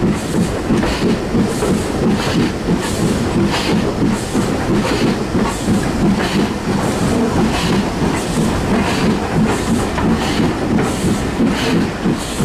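BR Fairburn 2-6-4 tank steam locomotive 42085 working a train, heard from the carriage behind it. Regular exhaust chuffs, about two a second, sound over the steady rumble and clatter of the wheels on the rails.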